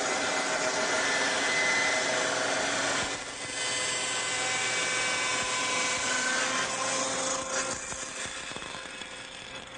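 Shopsmith Mark V table saw, its blade slowed to disc-sander speed, bevel-cutting a hardwood raised panel fed on edge against a high fence: a steady machine whine with the noise of the cut. The sound dips briefly about three seconds in and eases off near the end as the cut finishes.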